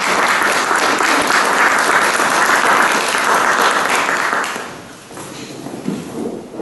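Audience applauding, a dense steady clapping that dies away about four and a half seconds in.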